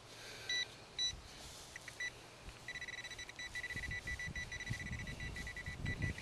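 Handheld metal-detecting pinpointer beeping at a steady high pitch: a few separate beeps in the first two seconds, then a fast run of beeps from about three seconds in, the sign that the probe is close to a metal target in the dug soil. Soil and grass rustle under the hand in the second half.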